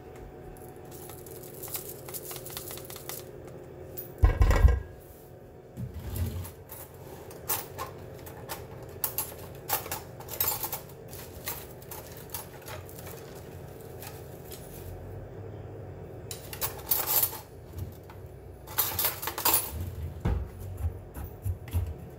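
Clicks, taps and rattles of dry quinoa and plastic containers being handled over a metal rice-cooker pot, with one loud knock about four seconds in and bursts of grainy rattling later on.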